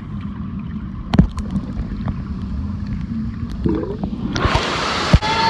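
Muffled underwater rumble and gurgling of pool water heard through a submerged camera, with a few sharp knocks. About four seconds in, brighter, louder splashing takes over.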